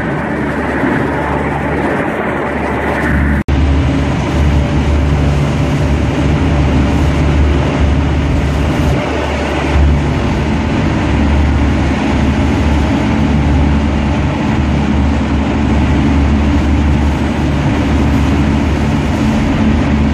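Pilot boat's engines running hard under way, with the rush of its wake and wind across the microphone; the sound drops out for an instant about three and a half seconds in.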